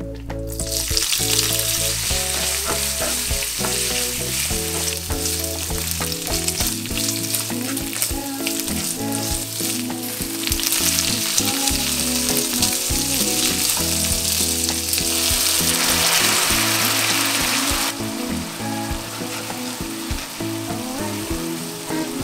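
Bacon and spaghetti frying in olive oil in a nonstick pan, a steady sizzle that starts about half a second in, grows louder midway and eases off near the end, with the pasta being stirred with chopsticks. Soft background music plays underneath.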